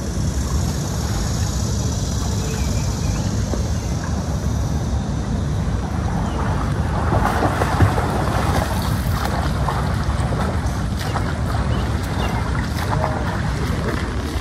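Wind on the microphone: a steady rush, with a few clicks and rustles about halfway through.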